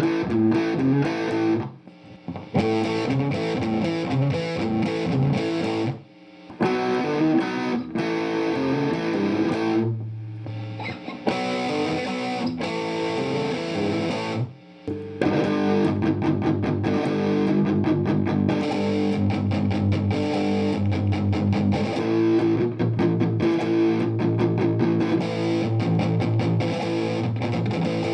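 Overdriven electric guitar played through a Marshall DSL40C amp into a Celestion speaker, with picked riffs broken by short pauses. From about halfway through the playing turns denser and more sustained.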